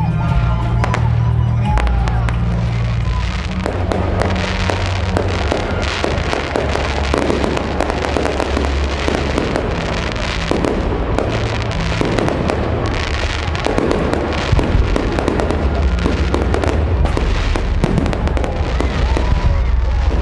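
Fireworks display: a dense run of crackling bursts and deep booms without a break, with music playing along underneath.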